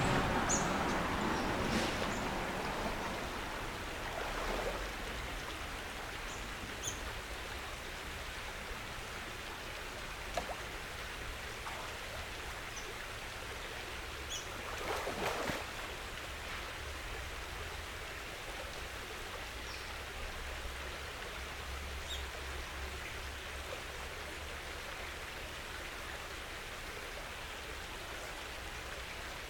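Water swishing and sloshing as a man in waders wades through a shallow creek, loudest near the start and again about fifteen seconds in, over a steady outdoor hiss.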